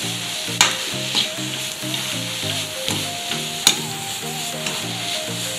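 Black nightshade greens and ground coconut sizzling as they are stir-fried in a non-stick wok, with the scrape of a metal spatula and a few sharp knocks of it against the pan.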